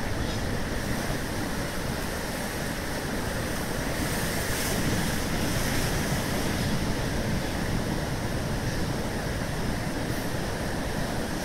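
Ocean surf breaking over a reef: a steady wash of waves that swells a little around the middle.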